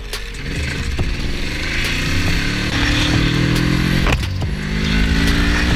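Motorcycle engine accelerating hard, its pitch rising, then shifting up a gear about four seconds in and rising again.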